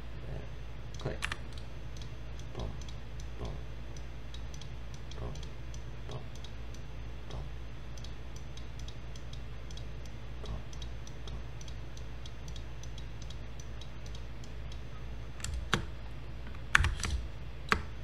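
Computer mouse and keyboard clicks: scattered light clicks throughout, with a louder cluster of clicks near the end, over a steady low hum.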